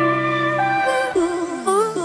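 Background music: held melodic notes changing every half second or so, with a long downward pitch slide in the second half.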